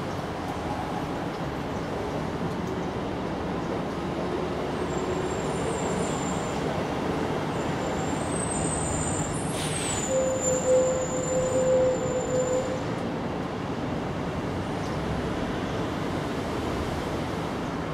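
Steady rumble of road traffic. About ten seconds in, a steady mid-pitched tone sounds for a couple of seconds over it, with a faint high whistle.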